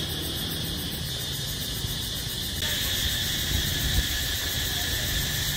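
Insect chorus: a steady, dense high-pitched shrill that spreads lower in pitch about halfway through, over a low rumble.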